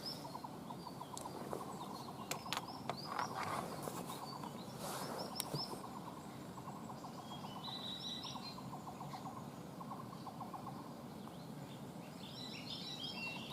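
Faint outdoor ambience: small birds chirping high and repeatedly, over stretches of a rapid, evenly ticking trill and a few soft clicks.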